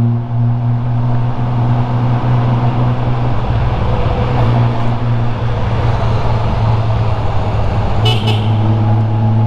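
Honda Gold Wing GL1500's flat-six engine running steadily on the move, with a constant low hum over wind and road noise. A brief high-pitched beep sounds near the end.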